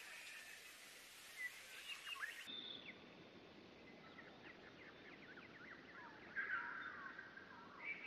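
Several wild birds chirping and calling in quick, short notes over a soft background hiss. The soundscape switches to a different recording about two and a half seconds in, and a short louder run of calls comes near the six-and-a-half-second mark.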